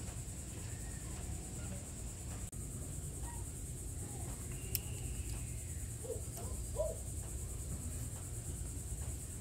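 Insects droning steadily at a high pitch over a low rumble, with a sharp click about halfway and a few faint short calls soon after.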